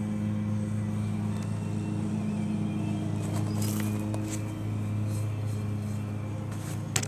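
Steady low mechanical hum, with a few light clicks about halfway through and one sharp tap near the end.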